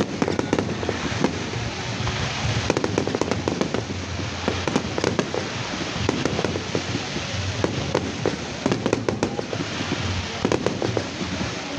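Fireworks display: a dense, continuous crackle of many rapid sharp pops and bangs, over a low rumble.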